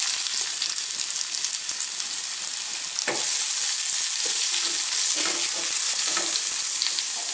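Sliced onions sizzling in hot oil in a stainless steel pan, stirred with a wooden spatula. A single sharp knock comes about three seconds in.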